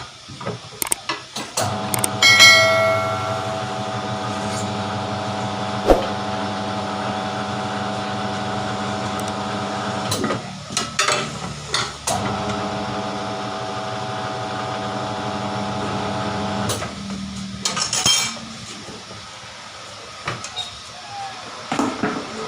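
Tyre-changer machine's motor running the turntable in two spells of several seconds each, a steady hum that starts and stops. Sharp metal knocks and clanks come between and after the spells, as the tyre is worked onto the rim.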